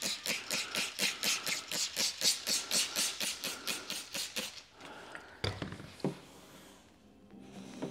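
Hand trigger spray bottle squirted rapidly, about four sprays a second for four and a half seconds, misting solution onto paint protection film. A few light knocks follow about five and a half seconds in.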